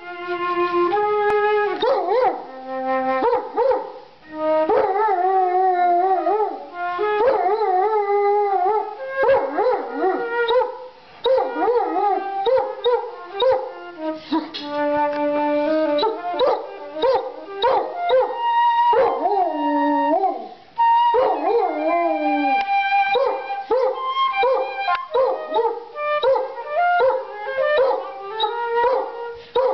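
Irish wolfhound howling along with a flute: the flute plays steady held notes while the dog's wavering howls slide up and down around them, with a few long falling glides.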